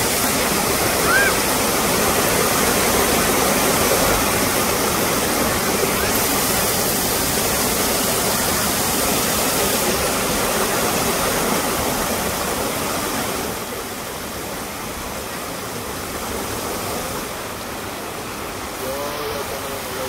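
Waterfall water pouring down onto rocks, a steady full rushing noise that drops a little in level about two-thirds of the way through, with faint voices near the end.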